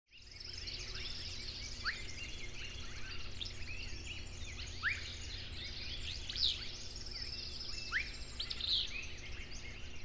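Several songbirds singing at once: dense high chirps and trills, with a clear upward-sliding whistle about every three seconds, over a faint steady low hum.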